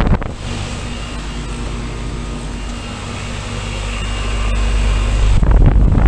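Outdoor heat pump unit running, its condenser fan and compressor giving a steady low hum with the rush of the fan's air. The discharge air buffets the microphone briefly at the start and again near the end.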